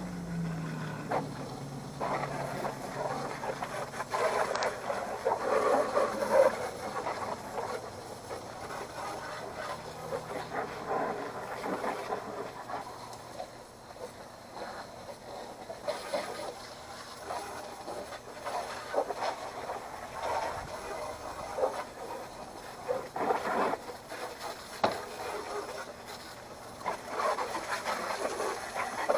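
Water spraying onto a push mower, rinsing off degreaser; the spray noise swells and fades unevenly as it moves over the mower.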